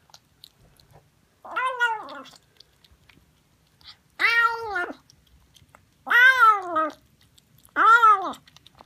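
Siamese kitten meowing four times while eating from a saucer, each meow rising and then falling in pitch, with faint chewing clicks between the meows.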